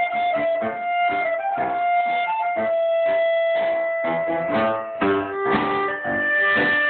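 Live tango played by accordion and piano: a long held melody line over regular, clipped chord strokes, with a violin joining about halfway through.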